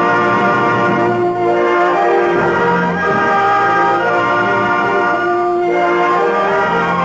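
Orchestral film-score music with brass, playing sustained chords that shift every second or two.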